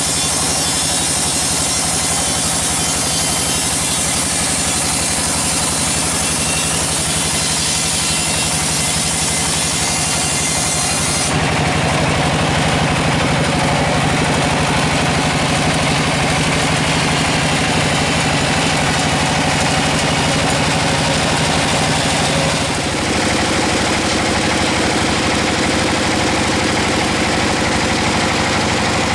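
Sawmill machinery running with a steady, loud drone at a constant pitch. The sound changes abruptly twice, about a third of the way in and again about three quarters through.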